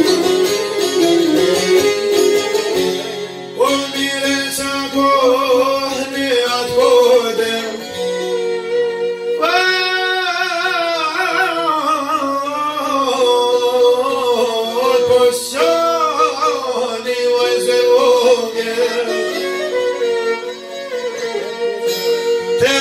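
Albanian folk song: a violin and long-necked plucked lutes playing together, and a man singing the melody from about ten seconds in.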